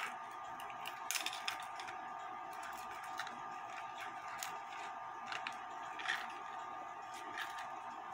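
Clock mainspring being wound by hand back into its brass barrel: scattered light metallic clicks and scrapes as the coils go in, over a steady background hum.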